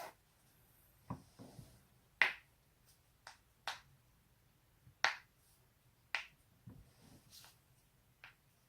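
Neck and back joints cracking: a string of about ten sharp pops and cracks, roughly a second apart, some coming in quick clusters of two or three. The loudest come about two and five seconds in.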